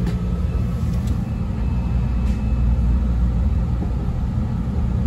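Chicago 'L' rapid-transit car of the CTA 5000 series, heard from inside the car while running between stations: a steady low rumble of wheels on rail and running gear, with a few faint clicks.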